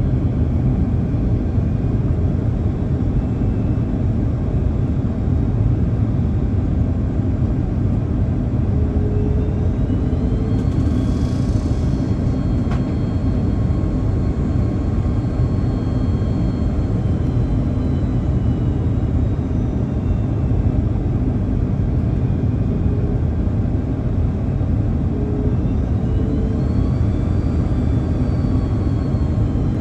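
Steady cabin rumble of an Airbus A330-200 in flight on approach, engine and airflow noise heard from a seat beside its GE CF6 engine. Faint high whines rise and fall about ten seconds in and again near the end, with a single light tick in between.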